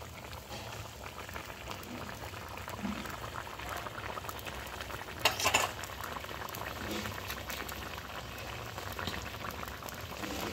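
Chicken and potato curry bubbling at a steady boil in a steel kadai, a fine continuous crackle of bursting bubbles, in its final simmer once the garnish is in. A brief loud clatter cuts in about five seconds in.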